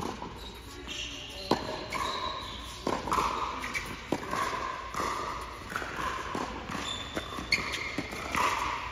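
Tennis rally on an indoor hard court: sharp racket-on-ball hits and ball bounces about every second or so, with tennis shoes squeaking briefly on the court between them.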